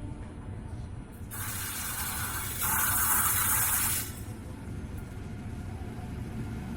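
Steady low rumble of a train, with a loud hiss that starts about a second and a half in, grows louder, and cuts off sharply about four seconds in.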